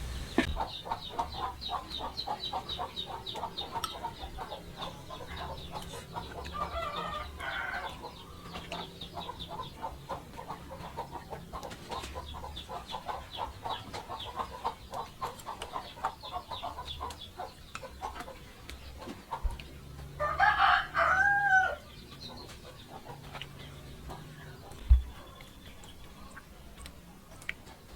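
Chickens clucking in fast repeated calls, with a rooster crowing once, loudly, about twenty seconds in. A single sharp knock comes near the end.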